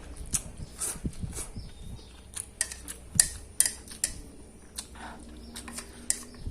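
A person eating instant fried noodles close to the microphone: chewing with irregular sharp clicks and smacks, and now and then a light clink of cutlery.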